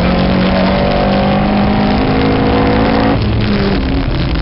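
Rally car engine pulling hard under acceleration, heard from inside the car, its pitch climbing steadily. About three seconds in the engine note drops suddenly as the power comes off.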